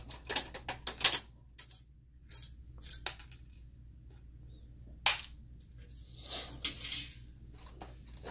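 Metal shield plate on a projector's main circuit board being unclipped and lifted off: a quick run of sharp metallic clicks and clatter in the first second, then a few scattered knocks and a short scraping rustle as it is handled.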